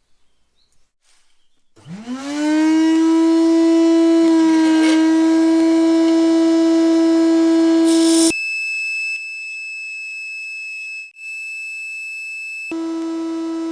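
Electric sander's motor starting about two seconds in, its whine rising quickly in pitch and then running steady. About six seconds later the sound switches abruptly to a thinner, higher-pitched whine, and near the end it switches back to the first whine.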